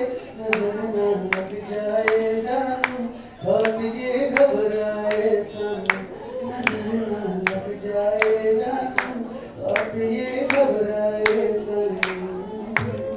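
A man sings a melody into a handheld microphone while people clap along in a steady beat, about two to three claps a second.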